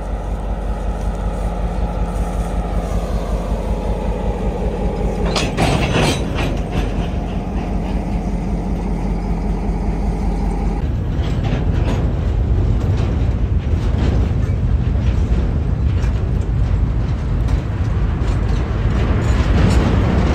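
G22 diesel locomotive's engine running loud and steady, with a short burst of noise about six seconds in. About ten seconds in the sound changes to the rumble and rapid clatter of loaded steel hopper wagons rolling past, their wheels clicking on the rails.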